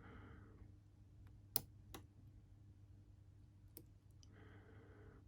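A few faint, sharp clicks of a hook pick working the pins of a Lockwood 356S63 padlock under light tension, the loudest about a second and a half in.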